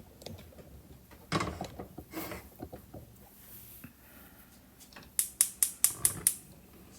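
Kitchen handling sounds at the stove: a few knocks and clatter, then a quick run of about seven sharp clicks near the end.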